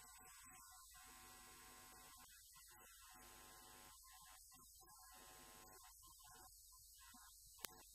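Near silence: a low, steady electrical hum with a faint high-pitched whine, and one sharp click near the end.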